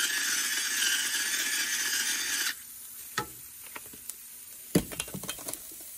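Salt grinder grinding salt over a skillet of sautéing onions: a steady grinding noise that stops suddenly about two and a half seconds in. After that come a few light knocks and scrapes of a wooden spatula in the pan.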